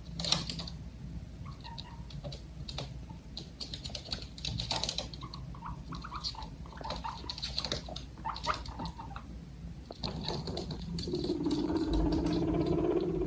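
Guinea pigs making scattered light clicks and taps with a few brief short squeaks, then from about eleven seconds in a steady low, rapidly pulsing purr begins and grows louder.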